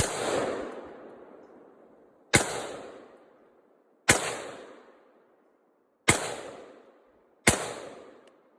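Five rifle shots fired at an unhurried pace, about one every second and a half to two seconds. Each sharp crack is followed by a reverberating tail that dies away over a second or more.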